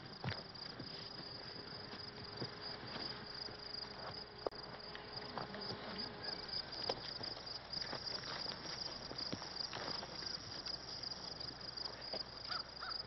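Crickets chirping in a steady chorus, a continuous high pulsing trill, with scattered faint clicks and rustles.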